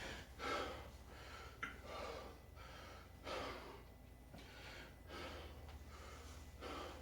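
A man breathing hard in faint, spaced breaths about a second apart while recovering from a set of shoulder exercises, with a small click about one and a half seconds in.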